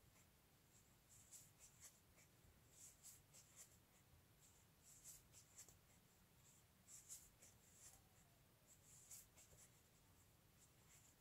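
Faint rustling of a wooden crochet hook pulling chenille yarn through stitches, in short clusters every second or two.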